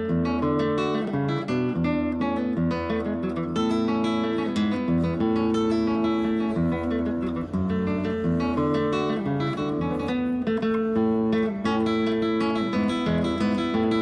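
Acoustic guitar music, a continuous run of plucked notes and chords.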